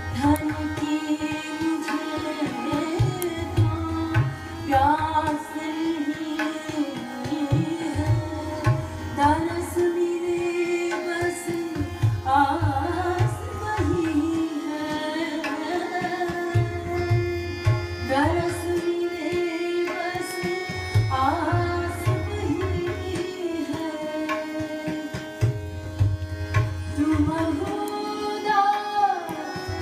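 A devotional bhajan in Raag Bhairavi: a singer's voice gliding and ornamenting over a steady drone, with low drum strokes in recurring rhythmic groups.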